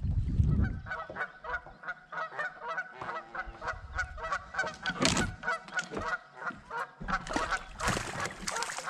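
Geese honking: a long, rapid run of short repeated calls.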